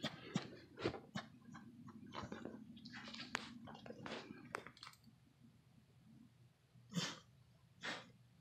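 Pit bull in labour breathing heavily, with quick short clicks in the first half and two loud huffing breaths about a second apart near the end.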